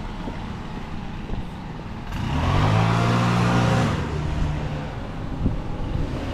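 A motor vehicle passes by about two seconds in, its engine and tyre noise swelling and fading over about two seconds, over a steady low engine hum.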